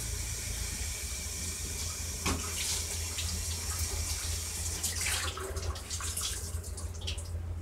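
Water running from a tap as a rag is wetted under it, with a knock about two seconds in and a few light knocks later; the flow fades out shortly before the end.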